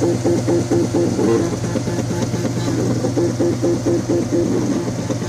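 Makerbot Cupcake 3D printer running, its stepper motors whining in short tones that switch pitch every fraction of a second as the axes move, over a steady low hum.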